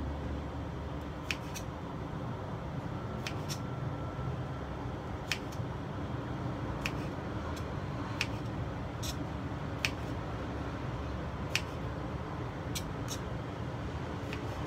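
Kitchen knife chopping through petai beans onto a cutting board: about a dozen sharp, irregularly spaced taps as the beans are halved one by one, over a steady low background hum.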